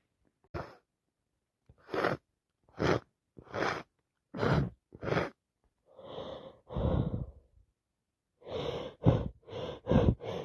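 A person with a heavy head cold gasping in short, sharp breaths as a sneeze builds up, then two longer breaths, then a quick run of louder sneezes near the end.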